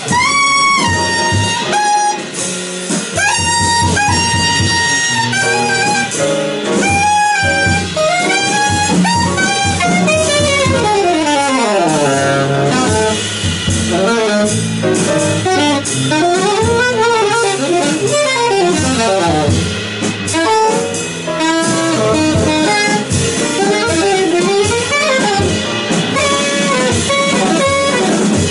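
Live small-group jazz: a saxophone plays long held notes at first, then fast runs that rise and fall, over double bass and drum kit.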